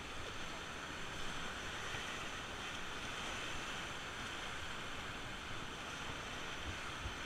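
Steady rush of whitewater from a river rapid.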